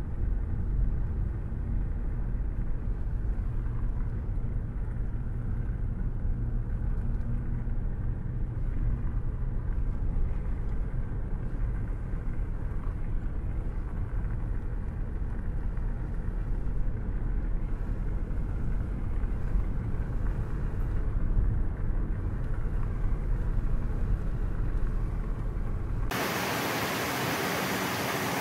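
Steady low rumble of a car driving on the road. Near the end it cuts off suddenly and an even, loud hiss takes over.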